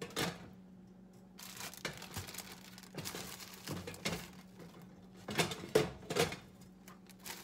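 Plastic zip-top bag crinkling and rustling as hands reach in and pull pieces out, with the loudest crinkles about five to six seconds in. A faint steady hum runs underneath.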